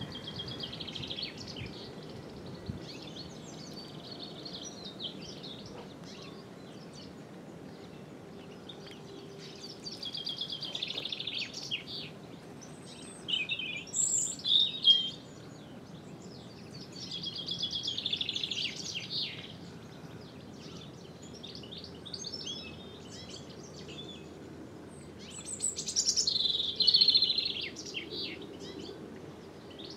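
A songbird singing in repeated bright phrases about two seconds long, several seconds apart, the loudest in the middle and near the end, over a faint steady background noise.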